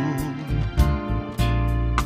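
Music: a live gospel band plays an instrumental passage between sung lines, acoustic guitar to the fore over bass, with a regular beat of sharp hits.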